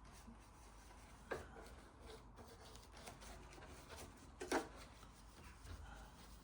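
Faint handling noises of small parts being moved and rubbed, with a light click about a second and a half in and two more close together around four and a half seconds.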